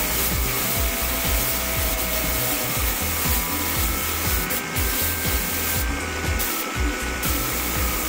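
Compressed-air paint spray gun hissing steadily while spraying a car body, the hiss cutting out briefly three times in the second half. Music plays underneath.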